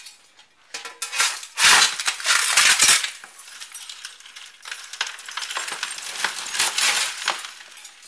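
Thin glass stringers and glass chips being scooped off a floor with a shovel and tipped into a bucket: scraping and a crunching, tinkling rush of glass in several scoops.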